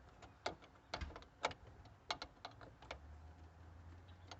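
Scattered metallic clicks from a wrench tightening the clamp on a car battery terminal, a few sharp ticks in irregular spurts.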